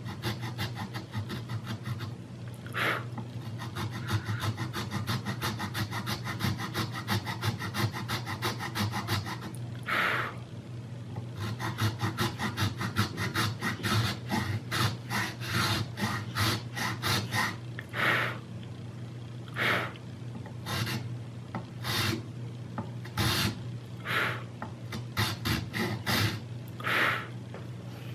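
A round file rasping back and forth in a groove on the top rail of a Zoraki HP-01 air pistol. The strokes are quick and even for about the first ten seconds, then come slower and heavier.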